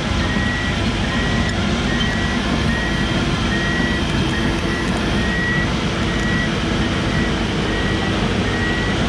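Komatsu 170 excavator's travel alarm beeping steadily, about once a second, over its diesel engine running.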